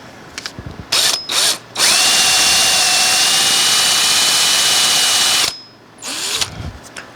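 Power drill boring a 3/8-inch flat-bottomed hole partway into a wooden board. It gives two short bursts, then runs steadily with a high whine for about three and a half seconds, then stops.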